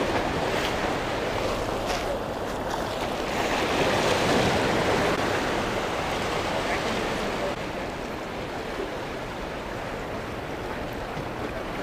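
Ocean surf washing over jetty boulders, a steady rush that swells about four seconds in and eases after about seven seconds.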